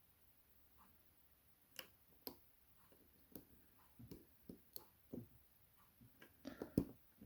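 Faint, irregular small clicks and taps of a lock pick and tension tool working the pins inside an Evva DPS dimple lock, with a quick cluster of louder clicks near the end.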